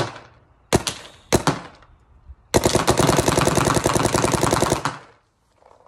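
Shocker RSX electropneumatic paintball marker firing: a few single shots about half a second apart, then a rapid string of shots lasting about two and a half seconds.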